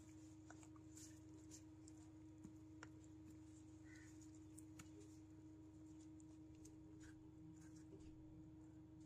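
Near silence: a steady low hum under faint, scattered ticks and scrapes of a silicone spatula stirring a sticky mashed-banana and sesame-seed mixture in a plastic bowl.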